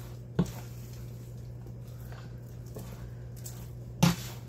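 Wooden spoon stirring caramel-coated popcorn in a speckled enamelware roasting pan, with soft rustling and two sharp knocks of the spoon against the pan, the louder one near the end. A steady low hum runs underneath.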